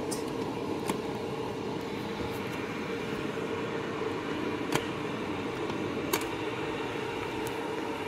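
Three light clicks of an electric kettle's stainless steel push-button lid being pressed, the button stiff and slow to spring the lid open, over a steady whooshing hum.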